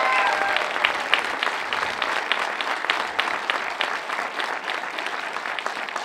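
Crowd applauding, the clapping slowly thinning out and dying down.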